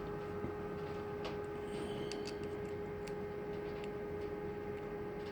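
Scattered light clicks and taps of small metal lock-cylinder parts being handled as a plug follower is set up to push out the plug, over a steady background hum.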